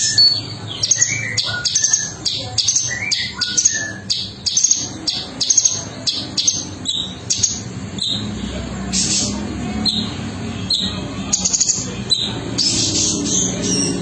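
Male orange-bellied leafbird (cungko) singing: a fast, continuous string of varied short chirps and whistled notes.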